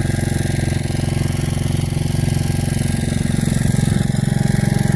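Rebuilt Kohler 241 single-cylinder engine of a 1968 Gravely Commercial 10A running steadily, powering its Snow Cannon snow blower.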